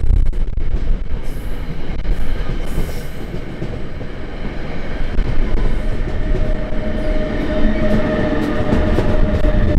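NJ Transit passenger cars rolling past as the train pulls out, a loud steady rumble. After about six seconds a steady electric whine comes in and grows louder as the pushing ALP-46 electric locomotive draws level.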